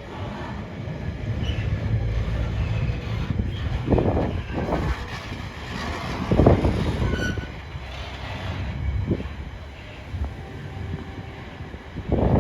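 Intermodal container freight train rolling past: a steady low rumble, with several sharper knocks along the way.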